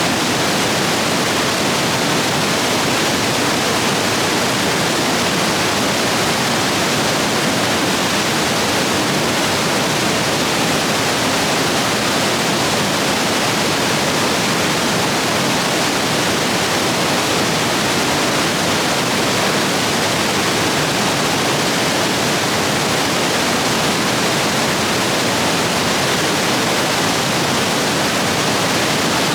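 Rain-swollen rapids rushing over rocks: a loud, steady roar of white water.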